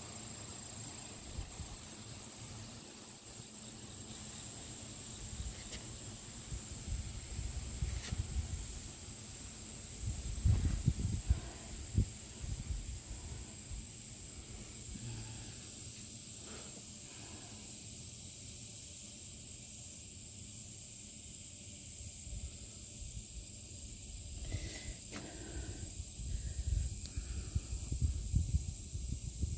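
A steady high-pitched hiss, with a changing low rumble and a few faint knocks underneath.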